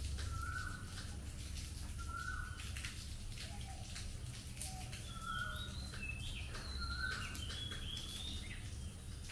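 Birds calling in the open: one bird repeats a short, slightly rising call four times, and other birds add higher chirps in the second half. Scattered drips of rain tick throughout, over a steady low rumble.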